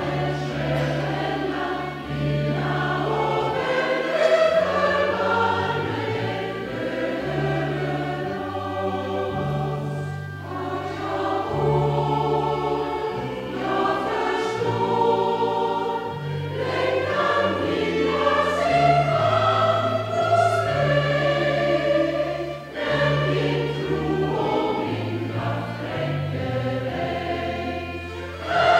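Large mixed choir of men and women singing a hymn with instrumental accompaniment, over a bass line of held notes that change every second or so.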